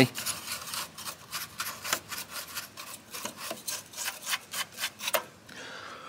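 Bristles of a paintbrush swept over a dusty computer motherboard: quick, uneven scratchy strokes, several a second, that stop shortly before the end.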